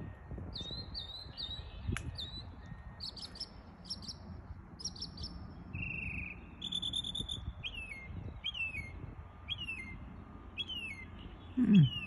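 Mockingbird singing a string of varied phrases, each repeated several times: quick rising-and-falling notes, buzzy chatters, a fast trill, then a run of falling whistled notes about two a second. A brief low sound near the end.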